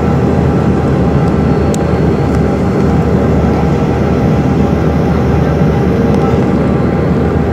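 Steady cabin roar inside a Bombardier CRJ200 airliner in flight on approach: the rear-mounted turbofan engines and rushing airflow, with a steady hum running through it. A faint click about two seconds in.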